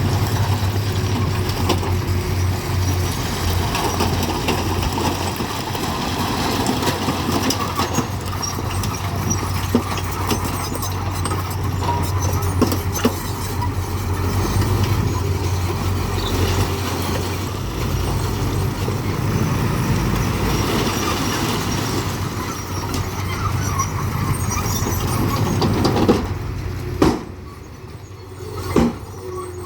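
Working machinery running steadily with a low, even hum. About 26 seconds in, the sound drops away and a few sharp knocks follow.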